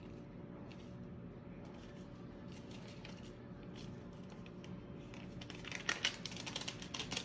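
Light clicks and scrapes of a spoon against a cooking pot while rice and sauce are stirred in, sparse at first and turning into a busy run of clinks and scraping about five and a half seconds in, over a steady low hum.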